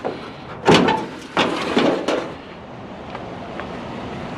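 Discarded scrap being handled and moved: four clattering knocks in the first two seconds, one with a short ring, then a steady low background rumble.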